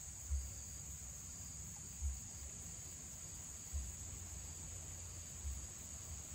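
Steady high-pitched drone of insects, with four low muffled thumps spaced roughly every second and a half to two seconds.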